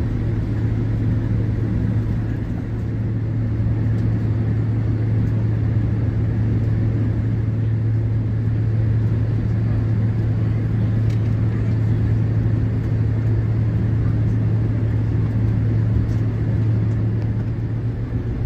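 Airliner cabin noise while taxiing: a steady low engine hum over an even rumble.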